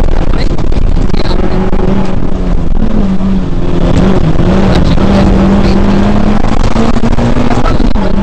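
Peugeot 106 FN2 rally car engine running hard under load, heard from inside the cabin. Its pitch drops and climbs again a few times as the car is driven through the stage.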